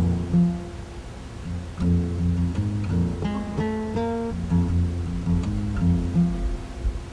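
Background music: a guitar playing a plucked tune over low bass notes, stopping near the end.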